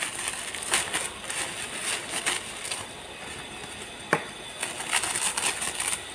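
Bubble wrap crinkling and rustling as it is handled and pulled off a wrapped card, in irregular crackly bursts, with one sharp click about four seconds in.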